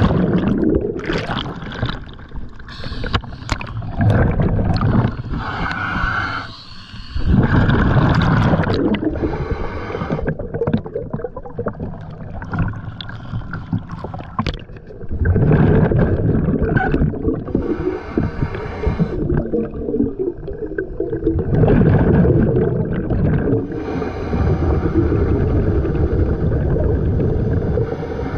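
Scuba diver's breathing heard underwater through the camera housing: a rush of bubbles at entry, then bursts of exhaust bubbles rumbling from the regulator every several seconds, with quieter hissing between breaths.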